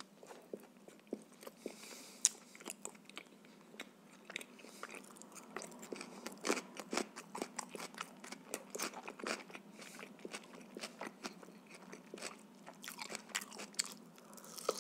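Close-up chewing and biting: a man eating bread with ketchup and then grilled shashlik meat, with many irregular small wet clicks, smacks and crunches of mouth and food.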